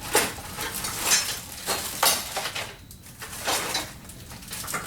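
Small hard items, such as tools, clinking and clattering as they are rummaged through by hand, in irregular bursts.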